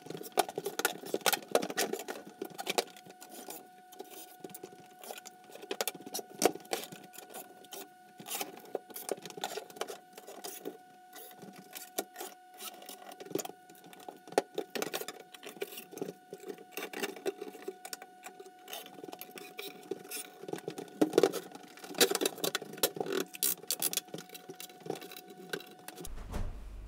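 Rapid, busy clatter of knocks and clicks from plywood workbench panels being handled and fitted together, sped up, over a faint steady tone that stops near the end.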